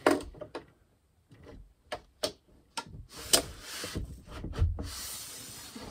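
Scattered clicks and knocks of a steel tape measure being handled and pressed against a wooden panel, followed by a longer rustling stretch with a few dull thumps in the second half.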